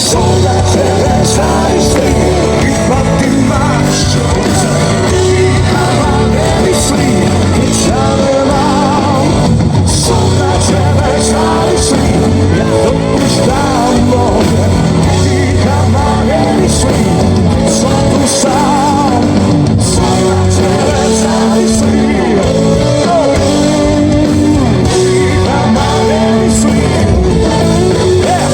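Loud live rock music: a band playing, with guitar and singing.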